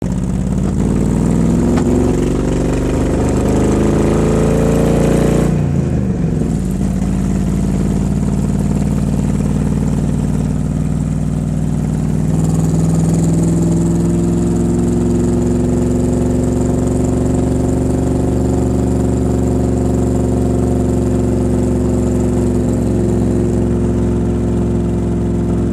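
Shelby Cobra replica's V8 engine misfiring, running rough on dropped cylinders with a tractor-like beat. It revs up over the first five seconds or so, drops back sharply around six seconds in, then runs steadily at a raised idle.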